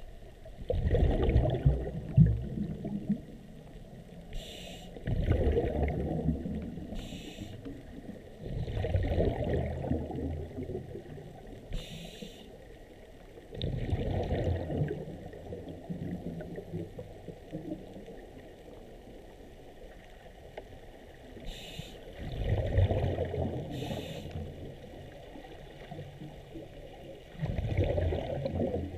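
Scuba diver breathing through a regulator underwater. A short hiss on each inhale is followed by a rumble of exhaled bubbles lasting about two seconds, six breaths in all, with a longer pause near the middle.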